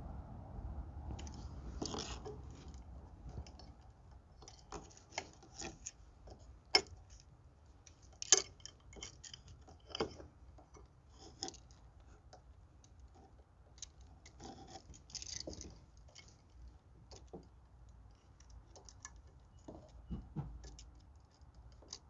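Scattered small metal clicks and scrapes as a screwdriver turns the terminal screws of a GFCI outlet and copper wire is bent around them, with two sharper clicks about a third of the way in.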